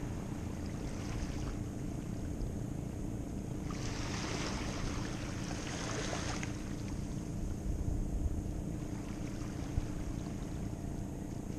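Wind rumbling on the microphone over small waves lapping at the shoreline. A louder hissing wash lasts about three seconds near the middle.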